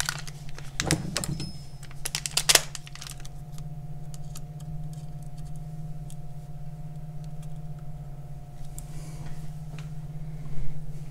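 Light metallic clicks and clinks of hands and small parts handled at the water pump housing of an outboard lower unit, bunched in the first few seconds with a few more near the end, over a steady low hum.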